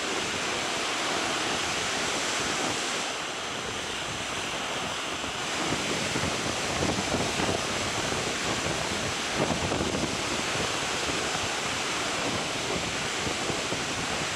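North Sea surf washing onto the beach, a steady rushing noise, with wind buffeting the microphone in stronger gusts from about six to ten seconds in.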